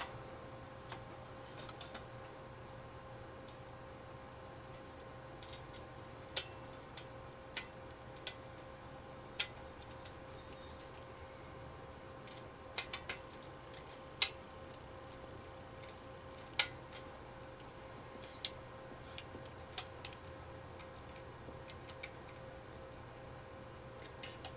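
Scattered small metallic clicks and taps as screws are handled and driven into a desktop computer's metal hard-drive cage, irregular and a few seconds apart, over a faint steady hum.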